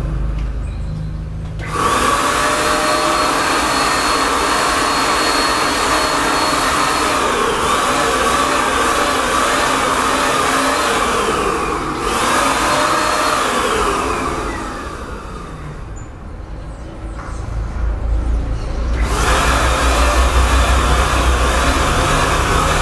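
Wonder electric paint spray gun, a compressor-free electric sprayer, running steadily while spraying paint onto the wheels. Its motor sound drops out briefly at the start and again for a few seconds past the middle, then comes back.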